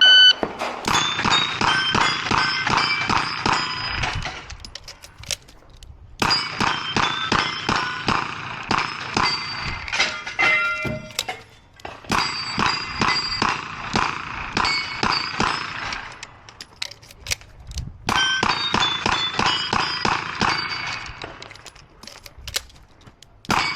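Smith & Wesson 929 9mm revolver fired in quick strings, with the steel plates ringing as they are hit. The shooting comes in three bursts with short pauses between them.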